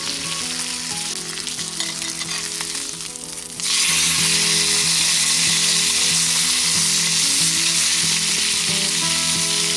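Beef steak sizzling in butter and beef fat in a small cast-iron skillet. About three and a half seconds in the sizzle suddenly grows louder and brighter, then holds steady.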